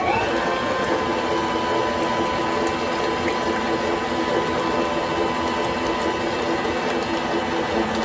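Electric stand mixer running at a steady speed: a high motor whine that comes up to speed right at the start and then holds, over the churning of the beater in the bowl.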